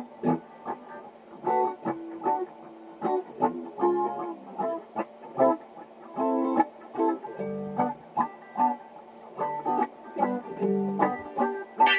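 Electric guitar being played: short plucked chords and single notes, each let ring briefly, in a loose jamming rhythm.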